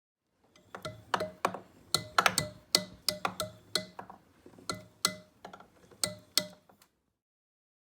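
An irregular series of sharp metallic clinks and taps, about fifteen strikes over six seconds. Each rings briefly at the same pitch, like one metal part or tool struck again and again. The sound starts and stops abruptly.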